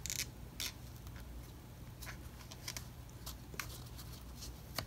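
Faint scattered ticks and rubbing of fingertips pressing and pinching glued elephant-skin leather down onto tooling leather, over a steady low hum.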